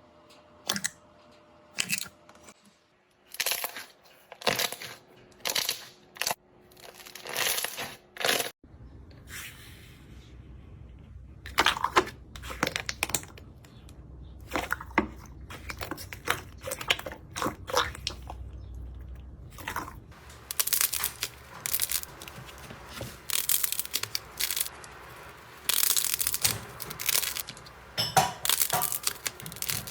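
Slime being squeezed and poked by hand: repeated crackling, crunching and popping in short bursts, separate with gaps at first and denser in the last third.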